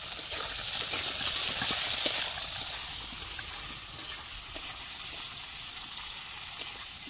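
Sliced potatoes frying in hot oil in a metal kadai, sizzling steadily. The sizzle is loudest in the first couple of seconds, then eases off, with a few light ticks.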